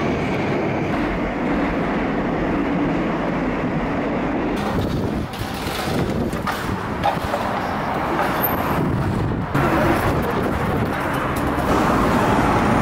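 Steady rumbling din of a metro system, with escalator and rail-train noise.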